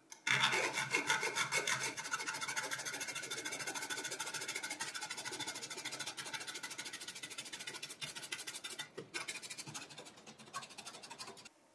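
Small hacksaw cutting into the plastic of a server hard-drive blank bracket: quick, rhythmic back-and-forth rasping strokes, loudest in the first couple of seconds, tailing off into a few scattered strokes near the end.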